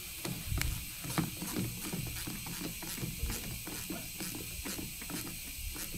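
Hand ratchet wrench clicking in short, uneven runs of a few clicks a second as a nut is turned.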